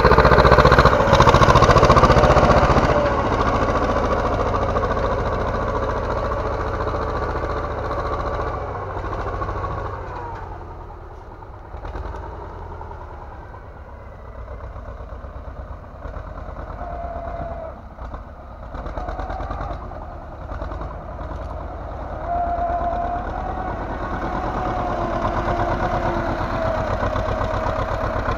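T-25 Vladimirets tractor's two-cylinder air-cooled D-21 diesel working under load while pulling a plough. Loud as it passes close at first, it fades as the tractor moves off, then grows louder again near the end as it comes back.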